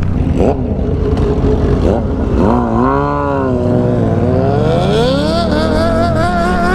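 Motorcycle engine under way, its pitch dipping and climbing several times as the throttle is opened and closed, over a heavy low rumble of wind.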